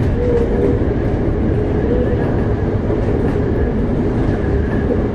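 Interior running noise of a Toei 5300-series subway car on the move: a steady, loud low rumble of wheels on rail, with faint light clicks of the rail joints.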